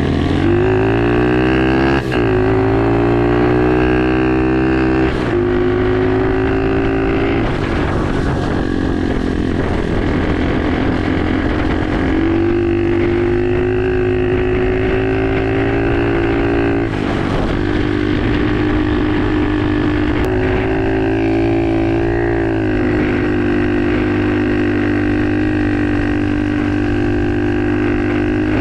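Pit bike engine pulling under way, its pitch climbing as it accelerates at the start, then holding fairly steady with several brief dips and changes in pitch as the throttle comes and goes.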